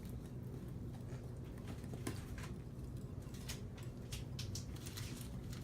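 Spoon stirring thick cake batter in a bowl: irregular taps and scrapes against the sides, over a low steady hum.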